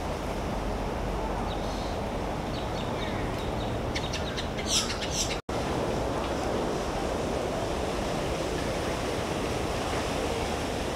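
Steady outdoor rushing noise with a few short bird chirps between about one and a half and five seconds in, broken by a brief gap of silence about five and a half seconds in.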